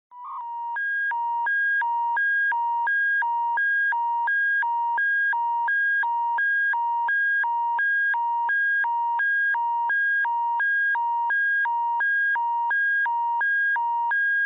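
Emergency alert attention signal: two loud electronic tones, a lower and a higher one, alternating about every 0.4 s in a steady hi-lo pattern, heralding a civil danger warning bulletin. A short single beep comes just before the alternation starts.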